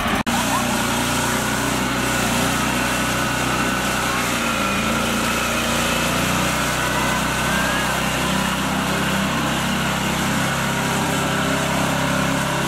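Mini tractor's small engine running steadily as it tows a load of children on a board through mud, with a brief cut just after the start.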